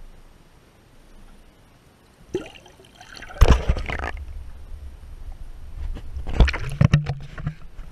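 A GoPro action camera plunging into the river: quiet at first, then a knock, a sharp splash about three and a half seconds in, and after it the muffled low rumble and sloshing of water heard from underwater, with more thuds near the end.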